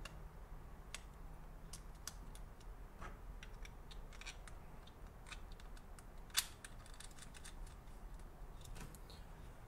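Light scattered clicks and taps of a GoPro's plastic housing and mount pieces being handled, as a small screwdriver works the mount screw; one sharper click about six seconds in. A low steady hum runs underneath.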